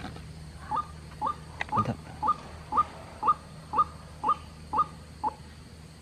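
A bird lure call played through a small speaker: a short rising note repeated about twice a second, ten times, stopping about five seconds in.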